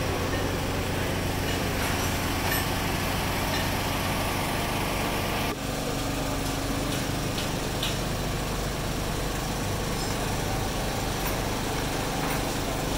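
A small engine running steadily at a constant speed, with a brief dip about five and a half seconds in.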